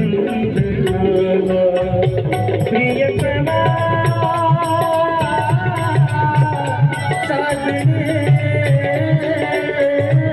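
Instrumental break in a Marathi wedding song: a held, gently bending melody over drum and small cymbal strokes keeping a steady beat.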